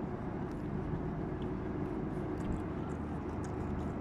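Steady low droning hum with a few faint, short clicks over it.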